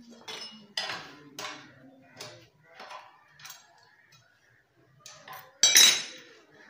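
Metal tool clinking against the exhaust pipe's two 10 mm flange nuts on a Honda CD-70 as they are tightened by hand: a string of separate sharp clinks, the loudest one near the end with a brief metallic ring.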